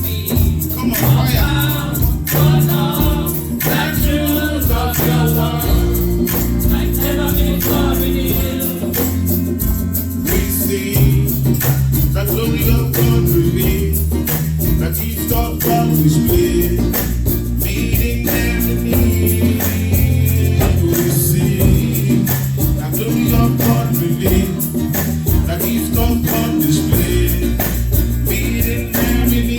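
A gospel song performed live: voices singing over a band with a strong bass line and steady percussion, including tambourine.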